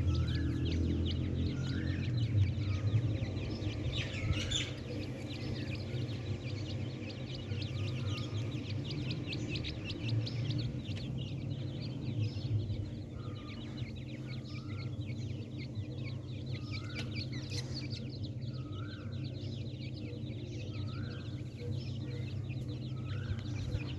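Grey francolin (teetar) chicks peeping: short upward-sliding notes repeated every second or two, over a steady low hum and a fine high chatter.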